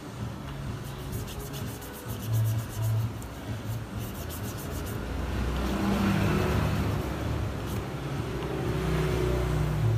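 Background music with a low, stop-start bass line and runs of quick high ticks, over the soft rubbing of a tissue wiping a plastic phone back cover.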